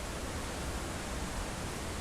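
Wind blowing over and buffeting the microphone: a steady hiss with an unsteady low rumble.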